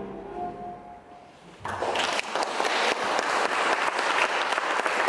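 Tango music ends on a last faint held note, then a small audience breaks into applause about a second and a half in, clapping steadily.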